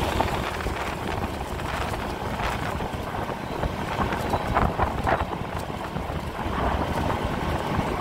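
Wind rushing over the microphone of a moving motorbike, with the bike's engine and road noise running steadily underneath.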